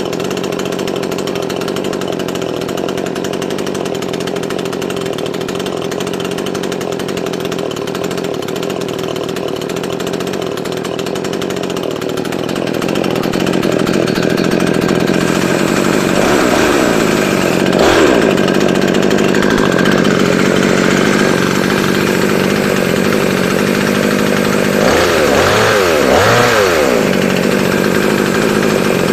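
A JLD 54.6 cc two-stroke chainsaw running steadily. It gets louder about twelve seconds in, and its pitch dips and recovers twice.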